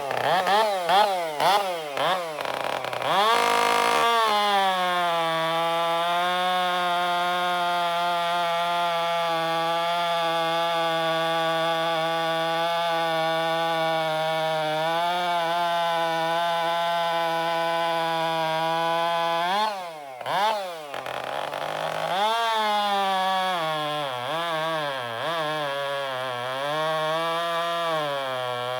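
Two-stroke chainsaw revved in quick blips, then held at full throttle and pulled down to a steady, lower pitch while cutting wood. About twenty seconds in it comes free of the cut, revs briefly, and goes into a second cut where its pitch wavers under load.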